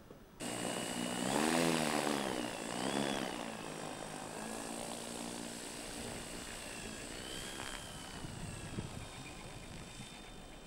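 Electric RC model plane's Plettenberg Predator motor and 24x12 propeller starting abruptly, revved up and down twice, then running steadily at lower power as the large Tucano model taxis, with a high electric whine over the propeller buzz.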